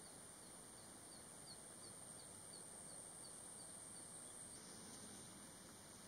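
Near silence: faint background hiss, with a faint, even series of high ticks, about three a second, that stops about four and a half seconds in.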